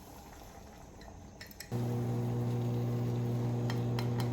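A couple of light clinks of kitchenware, then a steady low electrical hum that switches on abruptly about halfway through and holds at an even level.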